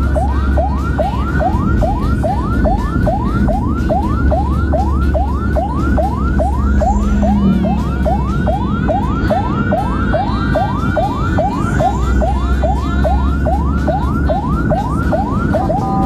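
Ambulance siren on the rapid yelp setting, heard from inside the cab: fast rising wails repeating about three times a second, over steady engine and road rumble.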